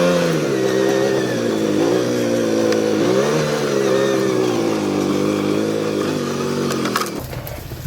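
An engine running, its pitch rising and falling as it is revved, then cutting off suddenly about seven seconds in.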